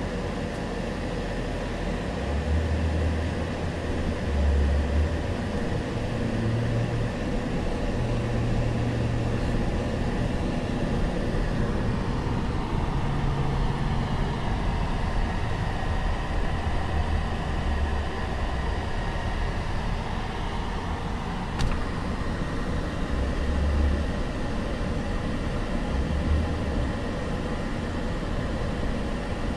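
Steady road and engine noise heard inside the rear cabin of a moving limousine, with a single sharp click about two-thirds of the way through.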